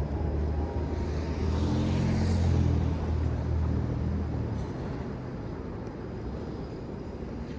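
City street traffic: a motor vehicle's low engine hum swells to its loudest about two to three seconds in, then eases off into steady traffic noise.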